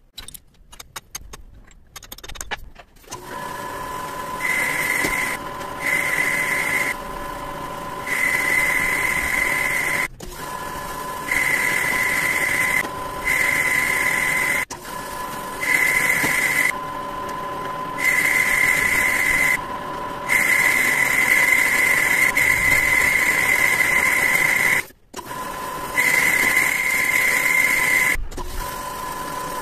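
Lathe running with a steady whine, and a louder, higher tone coming and going every second or two as the work is machined. A few sharp clicks come just before it starts, and the sound breaks off briefly a few times.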